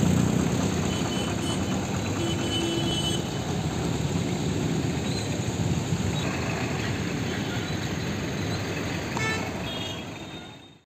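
Road traffic: motorcycle and car engines passing, with a few short horn toots. The sound fades out near the end.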